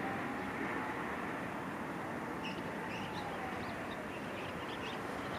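Steady outdoor background noise with a faint pitch that slowly rises and falls, and small birds chirping briefly in the middle.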